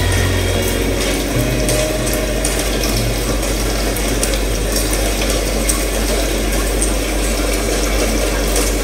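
Steady hiss of falling rain, a recorded rain effect closing the dance's backing track after the music has faded out.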